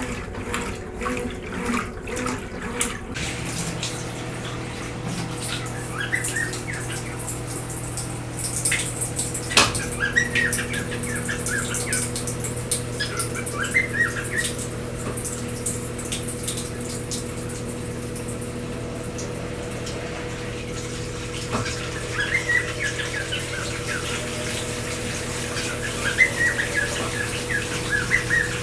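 Brastemp Tira Manchas Pro 12 kg washing machine running with water sounds: a rapid beat for the first three seconds, then a steady motor hum. Birds chirp over it.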